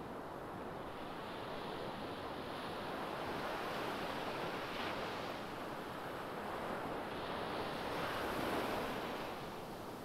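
Ocean surf: waves breaking and washing up a sandy beach in a steady rush. The rush swells twice, and the second swell, near the end, is the louder.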